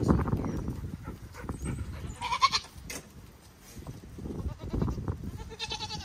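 Goats bleating in their pen: one call about two seconds in and another near the end.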